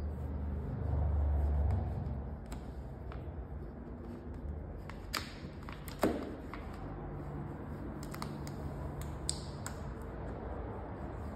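Vinyl wrap film being handled and trimmed at the edge of a car door: scattered sharp ticks and snaps, the loudest about six seconds in, over a steady low hum.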